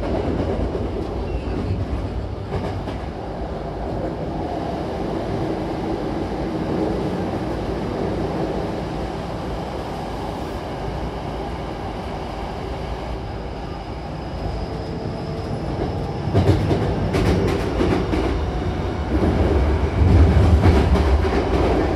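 Hankyu electric commuter train running, heard from inside the passenger car: a steady rumble of wheels and running gear. From about two-thirds of the way in it grows louder, with clusters of sharp clicks.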